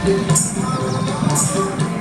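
Background music: a melody of held notes over a steady beat, with a bright percussive hit about once a second.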